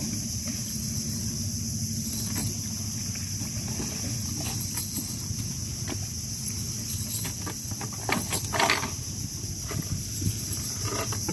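Nylon shrimp net being handled on a wooden boat deck while shrimp are picked out of the mesh: scattered rustles and small clicks, with a louder bout of rustling about eight seconds in. A steady low hum and a steady high-pitched whine run underneath.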